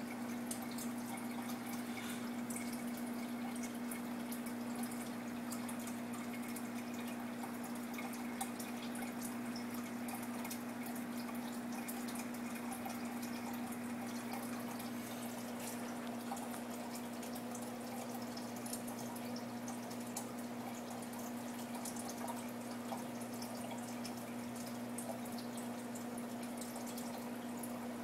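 Aquarium filter running: a steady low hum from its pump, with water trickling and dripping continuously back into the tank.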